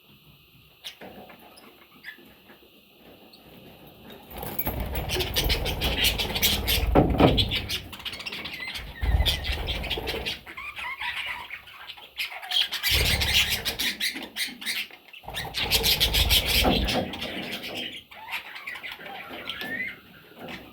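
Pet budgerigars chirping, with loud bursts of rustling and wing flapping from about four seconds in.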